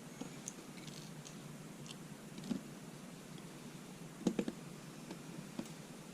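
Small metal clicks and taps as driver pins are worked out of an American Lock 1100 padlock's cylinder. There is a louder knock about two and a half seconds in and a quick run of three clicks a little after four seconds.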